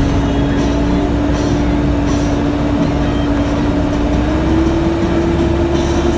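Caterpillar 420D backhoe loader's diesel engine running steadily under work, with a whine that steps up slightly in pitch about four seconds in.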